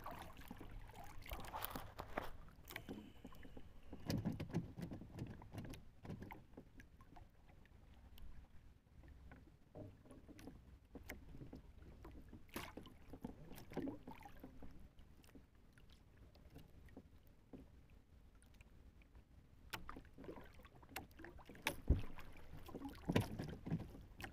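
Small wooden outrigger canoe at sea: scattered light knocks, clicks and rubbing against the wooden hull as a hand fishing line is worked, louder clusters about four seconds in and near the end, over a faint steady low background.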